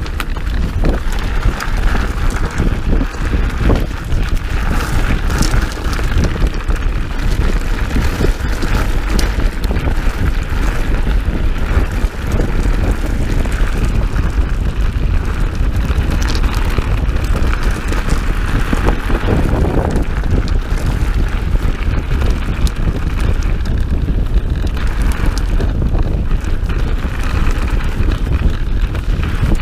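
Mountain bike riding fast down a dirt trail: heavy wind rumble on the microphone over the tyres on dirt and the bike rattling with frequent knocks over bumps.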